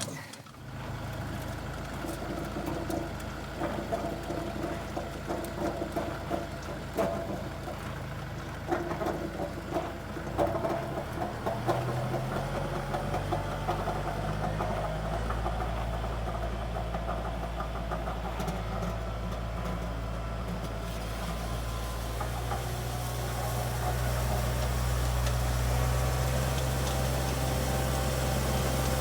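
Farm tractor engine starting, then idling steadily. Its pitch steps up about eleven seconds in, and it gets louder near the end.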